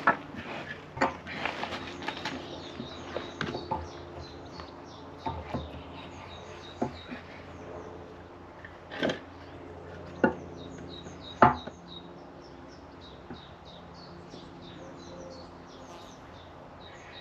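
Irregular metallic knocks and clinks from working under the cast-iron bed of a Victorian radial arm drill, a gear being worked up into the bed's bore from below. Three sharp knocks in the middle are the loudest. Birds chirp through the second half.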